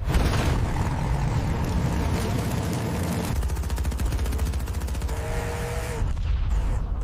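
A loud vehicle engine rumbling roughly, with a fast rattling stretch in the middle and a brief whine near the end.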